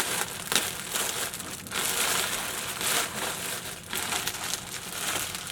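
Packaging of crochet hair packs being handled and unpacked, crinkling and rustling in uneven handfuls.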